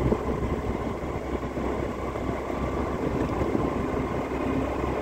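Steady road and engine noise of a moving vehicle.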